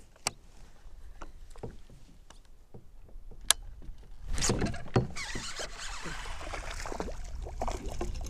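Small clicks and knocks of handling on a fishing kayak, one of them sharp about three and a half seconds in. After about four seconds a louder, continuous rushing noise with irregular peaks takes over.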